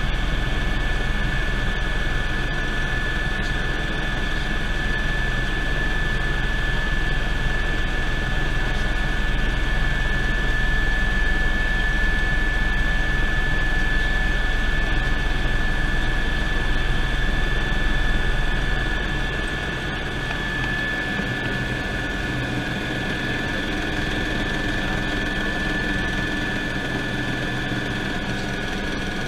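Cabin noise of a 2001 Eurocopter EC120 Colibri helicopter in flight: a steady high-pitched whine over rotor and engine rumble, heard from inside the cabin. It gets slightly quieter about two-thirds of the way through.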